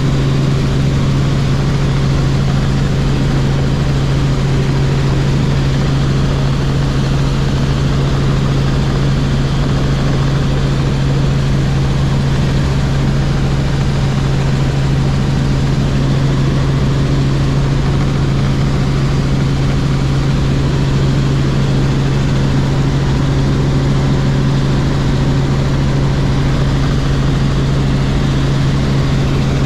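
Robinson R44 Clipper helicopter's piston engine and rotors running, a loud steady drone with a strong low hum that does not change.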